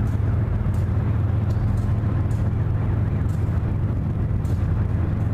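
CSX freight diesel locomotives (a GE ES44AH, an ES44DC and a Dash 8-40CW) running past hauling an intermodal train, a steady low rumble with faint light ticks about once a second.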